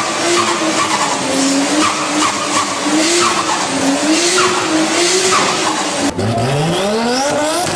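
Car tyres squealing in a long slide, the squeal wavering in pitch, over engine noise. About six seconds in, the sound cuts abruptly to a car engine revving up, its pitch climbing steadily.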